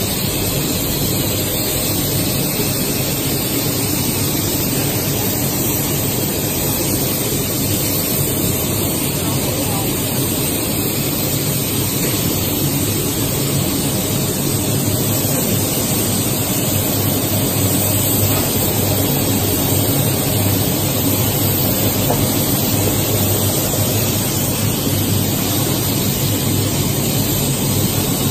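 PVC film extrusion line running: a steady, even machinery hiss with a low hum underneath and no distinct strokes or rhythm.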